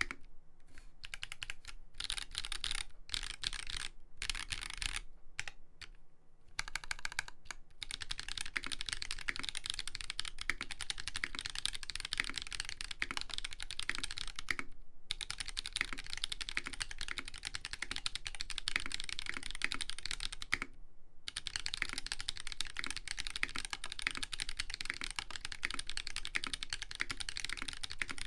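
Fast typing on an LZ Iron custom mechanical keyboard with lubed Holy Panda tactile switches (67 g) on a brass plate under ABS keycaps: a dense run of rapid keystroke clicks. It stops and starts in short bursts over the first several seconds, then runs on with two brief pauses.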